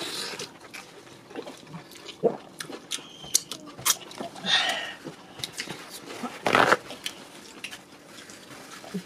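Close-up mouth sounds of eating egusi soup and swallow by hand: wet chewing, lip smacking and finger sucking, as short clicks and smacks. Two louder short rushes of noise come about halfway and about two-thirds through.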